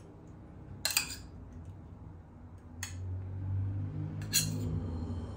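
Metal fork clinking against a ceramic plate and bowl three times while salad is served, over a low steady hum.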